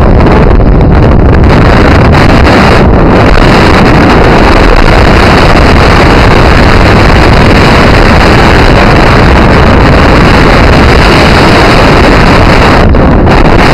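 Strong wind buffeting the camera microphone: a loud, steady rumble of wind noise with no let-up.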